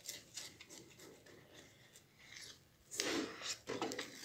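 Wooden spoon stirring and scraping thick molasses pudding in a stainless steel pot: faint rubbing strokes, louder about three seconds in.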